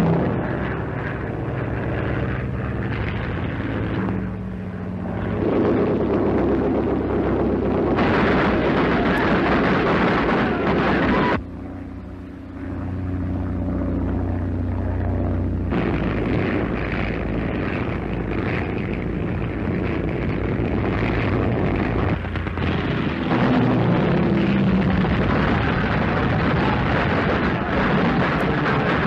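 Battle sound effects from an early sound film: aircraft engines droning with explosions, the mix changing abruptly several times.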